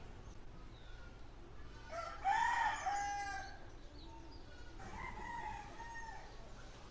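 An animal call, twice: a loud drawn-out call about two seconds in, rising then falling in pitch and holding for over a second, and a fainter one near the end.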